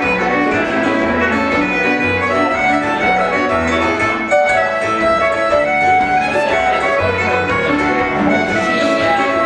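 Fiddle tune played with the bow, the melody carried by the fiddle over an accompaniment of backing chords and low bass notes.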